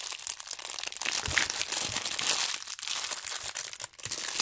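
Clear plastic packaging crinkling as hands handle foam squishy donuts sealed inside it, a continuous crackly rustle with many small clicks.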